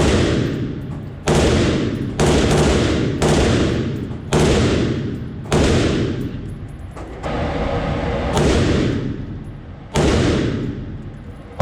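Select-fire rifle firing shots at a steady pace, about nine loud reports roughly a second apart, each with a long echoing tail.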